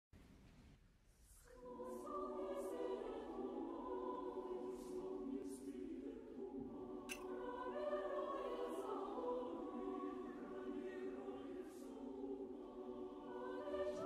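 A choir singing slow, held chords as background music, coming in about a second and a half in.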